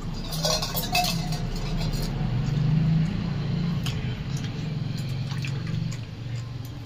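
Water poured from a steel jug into a steel tumbler, filling it, with a few metal clinks about half a second to a second in.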